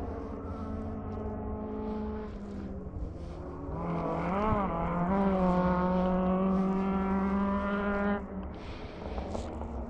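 Rally car engine at full throttle on a forest stage: it revs up, gives a quick rise and fall in pitch about four and a half seconds in, holds a loud steady high note for about three seconds, then drops off suddenly as the driver lifts.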